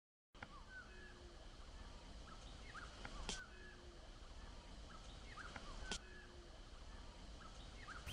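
Faint outdoor ambience of birds chirping and calling in short repeated notes over a low steady rumble, with two sharp clicks in the middle.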